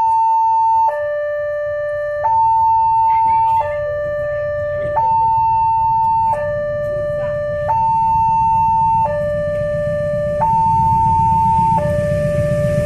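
Railway level-crossing warning siren sounding a two-tone alternation, a higher tone and a lower tone each held for about a second and a half, repeating steadily. A low rumble grows louder underneath in the second half.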